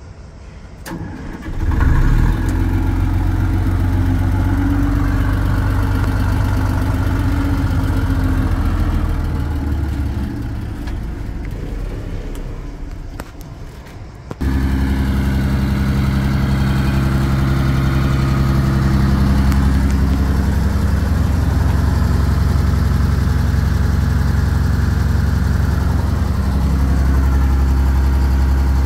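Rolls-Royce C6T six-cylinder turbo diesel engine of a 260 kVA generator set starting up about a second and a half in and running at a steady speed. Its sound fades somewhat part way through, then steps up suddenly to louder, steady running for the rest.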